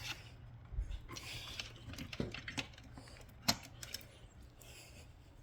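Faint, scattered clicks and knocks of small plastic devices being handled, the sharpest about three and a half seconds in, over a low steady hum.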